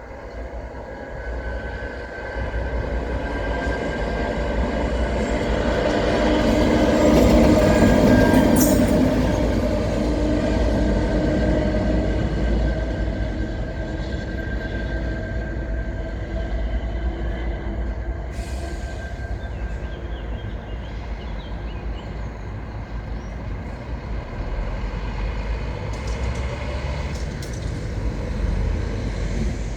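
A train passing on the rails, loudest about eight seconds in and then running on steadily, with some held tones over the rolling noise.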